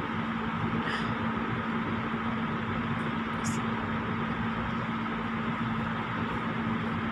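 A steady machine hum with a constant low tone over an even hiss, with a faint click or two.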